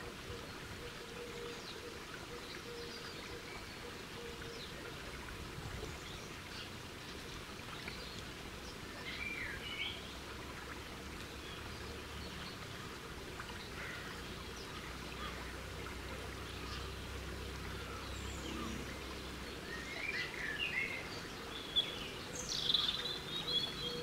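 Garden birds chirping over a steady outdoor hiss and faint hum: a few short chirps about nine seconds in, a low rumble through the middle, and a louder cluster of chirps and calls near the end.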